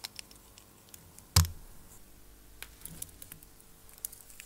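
Scattered light clicks and handling noise from a metal watch crystal press tool and a watch being handled, with one sharp knock about a second and a half in.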